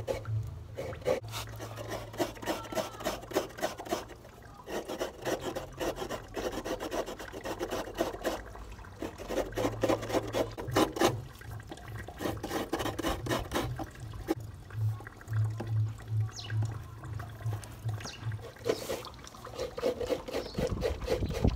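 Coconut half grated by hand, the white flesh scraped against a grater in rapid, rhythmic rasping strokes, with brief pauses.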